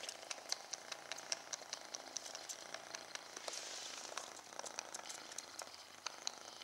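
A kitten sucking on a person's finger: a run of small, quick sucking clicks, several a second and irregularly spaced.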